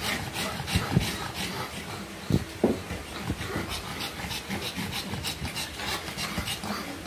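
Pug in labour panting rapidly, about three to four quick breaths a second, with a few brief louder thumps.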